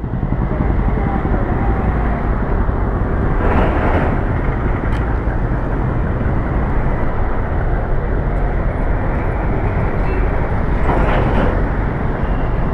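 Steady, loud outdoor street noise, with two brief swells about three and a half and eleven seconds in.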